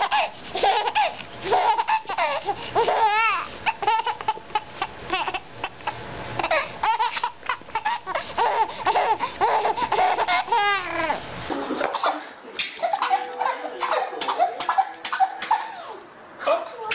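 Babies laughing hysterically in repeated fits. About two-thirds of the way through, one baby's laughter cuts off suddenly and another baby's laughing takes over.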